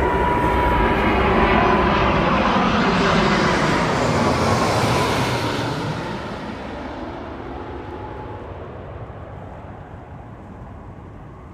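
Twin-engine jet airliner on final approach passing low overhead: the jet engine rush and whine swell to a peak about four to five seconds in, then fade as it flies on, the hiss thinning out and the whine dropping slightly in pitch.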